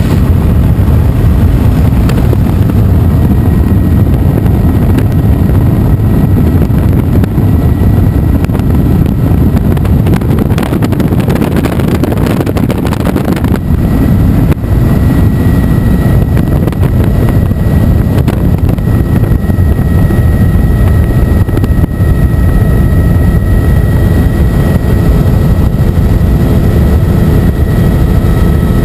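Helicopter cabin noise in flight: a loud, steady engine and rotor drone heard from inside the cabin, with a faint steady whine above it.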